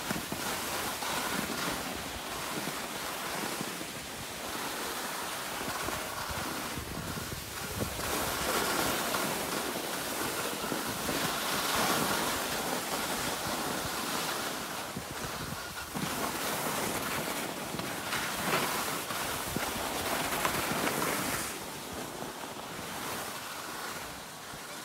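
Skis sliding and scraping over packed snow during a downhill run, with wind rushing over the microphone: a steady hiss that swells and eases, dropping a little near the end.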